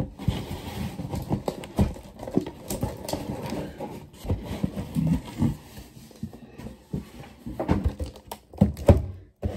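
Cardboard being handled: a shipping box flapped open and a boxed water pitcher slid out, with scraping and rustling broken by many sharp knocks of cardboard against cardboard.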